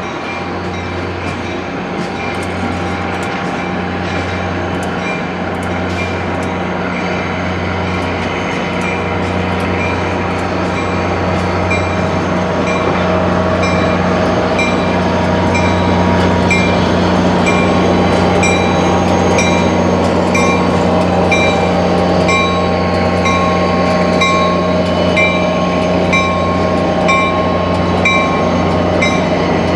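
Caltrain diesel-hauled push-pull passenger train rolling past, with the locomotive pushing at the rear. A steady low diesel engine hum runs under the noise of the wheels on the rails, and a bell rings steadily at a little over once a second.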